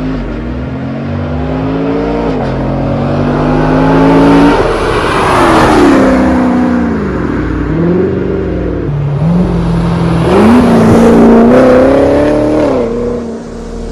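Chevrolet C7 Corvette Stingray's 6.2-litre V8 accelerating hard, its pitch climbing and then dropping at each gear change, about two seconds and four and a half seconds in. After that the revs rise and fall several more times.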